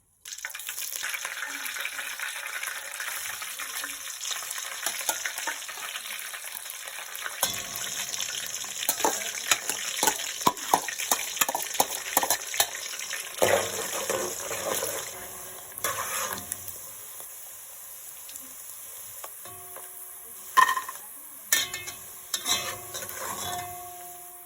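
Titus fish (mackerel) frying in hot oil in a pan, sizzling loudly from the start, with a utensil stirring and scraping against the pan through the middle. The sizzle then dies down, with a few sharp knocks near the end.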